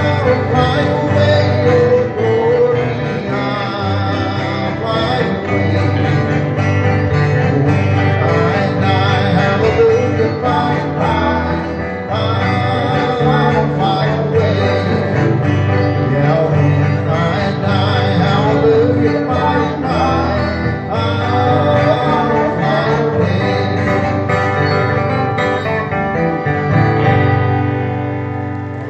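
Live country gospel music from a band, led by guitar, with singing.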